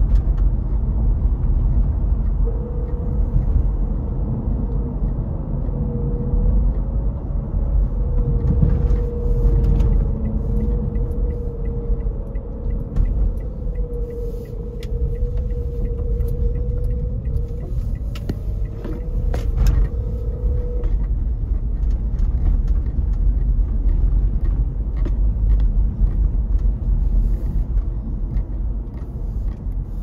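Car driving at road speed, heard from inside the cabin: a steady low rumble of engine and tyre noise. A faint, slightly wavering single tone runs through it from a few seconds in until about two-thirds of the way through.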